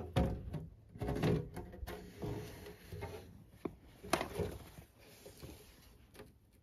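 A string of irregular knocks and scrapes, several close together in the first couple of seconds, one sharper knock about four seconds in, then thinning out near the end.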